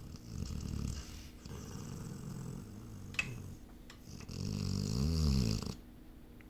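A sleeping animal snoring: a loud snore about half a second in, a softer breath after it, and a second loud snore with a rattling pitch that rises and falls near the end. A short click comes between them.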